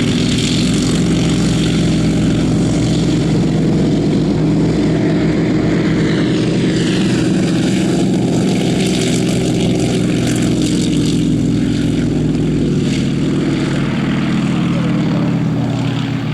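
Yakovlev Yak-50/Yak-52 nine-cylinder M-14P radial engine at full power on a take-off run, propeller and engine running loud and steady. The pitch drops about halfway through as the aircraft passes, and the sound fades a little near the end.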